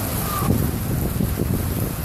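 Wind buffeting the microphone over steady rain, a dense low rumble with a hiss of rain.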